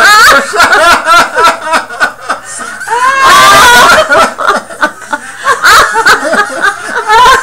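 Loud human laughter in repeated snickering bursts, with a long, high, sliding laugh about three seconds in.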